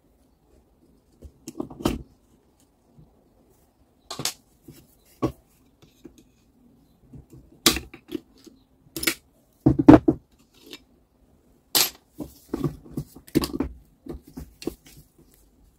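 Tools and small metal parts being handled on a workbench: irregular sharp clicks and knocks, the loudest a cluster about ten seconds in.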